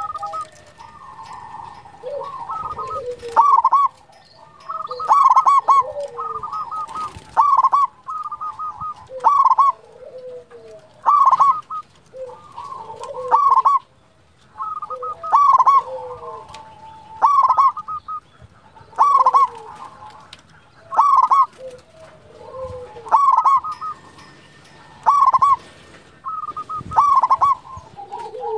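Zebra dove (perkutut) singing its cooing song over and over, with a loud phrase about every two seconds and softer cooing notes between.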